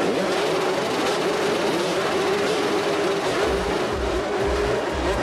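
A pack of motocross bikes' engines held at steady revs before the start of a race, a continuous drone. About three and a half seconds in, music with a deep, pulsing bass comes in under them.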